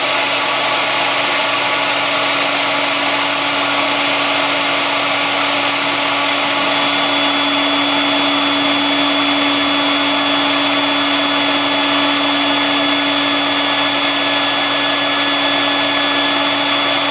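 Electric blower motor on a wood gasifier running steadily at high speed, pulling smoky gas through the system and out the exhaust pipe: a constant motor whine over a rush of air. A thin high whistle joins about seven seconds in.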